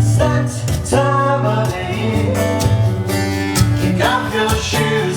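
Live band playing a song: strummed acoustic guitar with a singer's voice over it.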